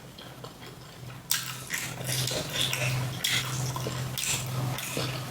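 Close-up eating sounds of fried chicken being bitten and chewed: a quiet start, then about a second in a run of irregular crunchy bites and chewing clicks.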